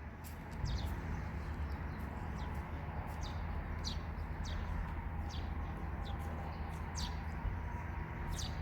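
Small birds chirping again and again, short high chirps that sweep downward, over a steady low rumble.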